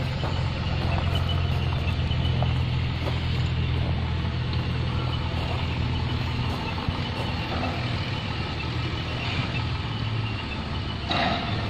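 Submerged arc welding machine running, its power source giving a steady low mains hum over a noisy haze; the hum eases off near the end.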